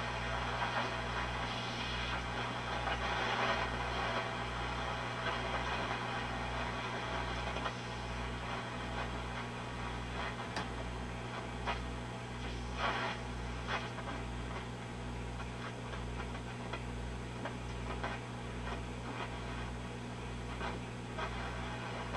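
A Grunow 1191 all-wave tube radio's loudspeaker giving off shortwave static and hiss while the dial is tuned across the band, with a steady low mains hum that throbs a little faster than once a second. Short crackles come now and then over the static.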